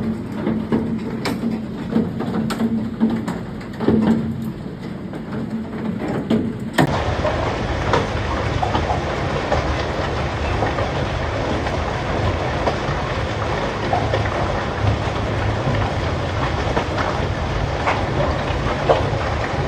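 Hailstones pelting hard surfaces, a dense clatter of countless small impacts. For the first seven seconds the hits are sparser and more distinct over a low steady hum, then the sound changes abruptly to a thicker, even din of hail.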